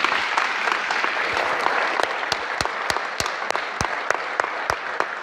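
Audience applauding. The dense clapping thins out after about two seconds, leaving loud close claps at about three a second.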